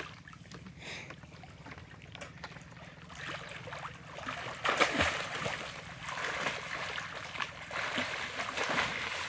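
Water splashing from swimmers' arm strokes, faint at first, then louder and choppier from about three seconds in, with the biggest splash about five seconds in.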